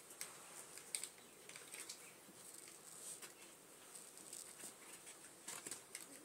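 Faint scattered clicks and rustles of handling, with a sharper click about a second in and a few more near the end.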